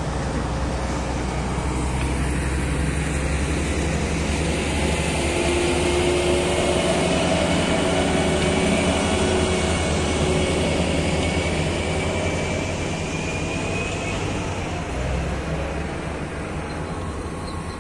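Heavy six-cylinder diesel engine of a Komatsu HM400 articulated dump truck running steadily, its sound swelling through the middle and easing off near the end.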